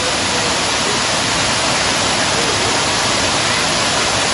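Somersby Falls, a waterfall cascading over tiers of rock ledges: a loud, steady rush of falling water.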